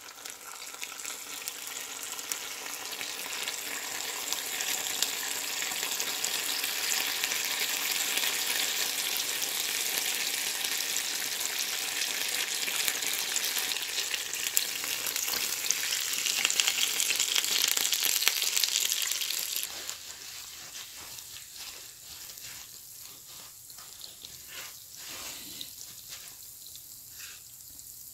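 A tteokgalbi patty with melted cheese sizzling on the hot plates of an electric waffle maker, fat running off. The sizzle is steady and grows louder, then drops sharply about two-thirds of the way through, leaving quieter clicks and rustling.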